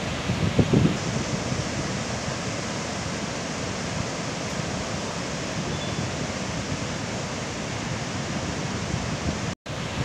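Steady rushing noise of a wide waterfall in monsoon flood, heavy brown water pouring over the falls. Wind gusts on the microphone in the first second, and the sound cuts out for an instant near the end.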